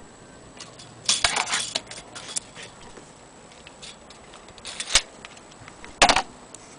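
Handling noise: scattered clicks and rustles, with a cluster of louder ones about a second in and sharp knocks near five and six seconds.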